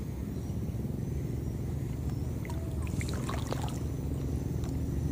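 Steady low engine drone, with a short cluster of high chirps and clicks about three seconds in.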